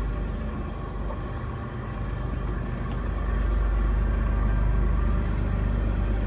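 BNSF freight train running past: a steady low rumble with engine tones, swelling about three seconds in. No horn sounds.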